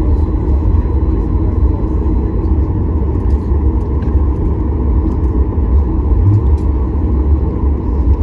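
Steady low cabin rumble of a Boeing 737 MAX 8 taxiing on the ground after landing: the engines at idle and the rolling noise of the airframe.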